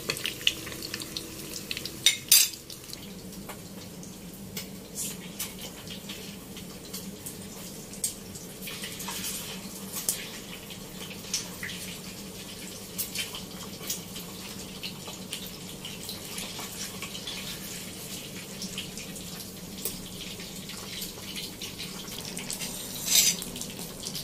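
Eggs frying in hot oil in a pan, a steady sizzle, with scattered clinks of a steel spoon against the pan and a plate, and a louder bout of clattering near the end. A low steady hum runs underneath.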